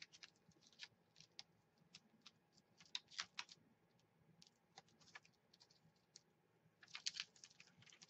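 Faint, irregular light clicks and crackles of clear plastic craft stamps being peeled off their plastic backing sheet and handled, thickening into quick clusters about three seconds in and again near the end.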